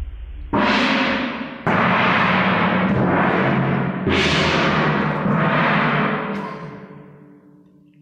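Wuhan tam-tams (large Chinese gongs) struck about four times, each stroke ringing out in a bright shimmering wash that runs into the next, then dying away over the last two seconds.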